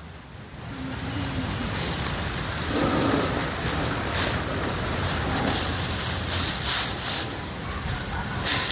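Dry rice straw and grass rustling and crackling as a hand pushes through it around a cricket burrow, with several louder crackles along the way.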